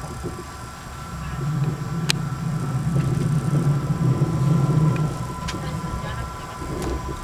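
Train running along the track, heard from inside the carriage: a steady low rumble of the wheels with a constant high hum over it, the rumble growing louder for a few seconds in the middle. A sharp click about two seconds in.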